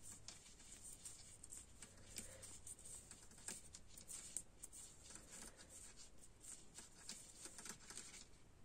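Faint, irregular clicks and rustles of knitting needles and yarn as stitches are worked, barely above near silence.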